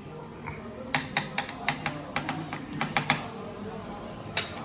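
Utensils clicking against dishes at the table in a quick, irregular string of sharp taps, with two more taps near the end.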